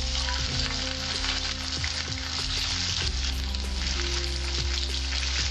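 Pieces of katla fish, rubbed with salt and turmeric, sizzling as they shallow-fry in hot mustard oil in an aluminium kadai: a steady hiss with scattered small pops.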